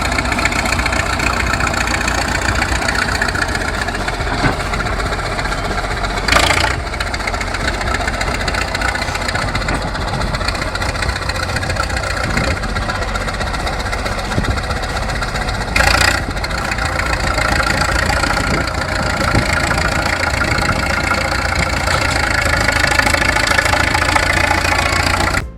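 Engine of a heavy machine such as a tractor or excavator running steadily, with two brief louder bursts about six and sixteen seconds in.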